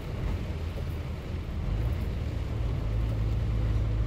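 Truck's diesel engine heard from inside the cab, a steady low drone that grows a little louder about halfway through.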